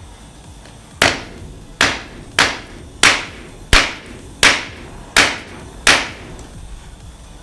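A club hammer strikes heated aluminium pieces laid on a metal cylinder: eight sharp metal-on-metal blows, a little under a second apart, each with a brief ring. This is an attempt to hammer-weld softened aluminium.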